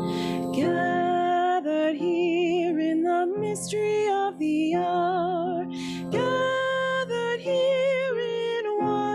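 A woman singing a hymn into a handheld microphone, her held notes wavering with vibrato, over a steady instrumental accompaniment.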